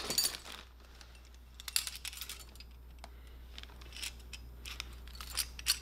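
Small plated steel hardware (washers and springs) clinking together as it is lifted out of a plastic bag and handled, with the bag crinkling. The clinks are loudest in the first half-second, then come as scattered light clicks.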